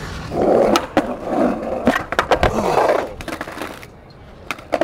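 Skateboard wheels rolling on concrete, with several sharp clacks of the board, then quieter, with two more clacks near the end.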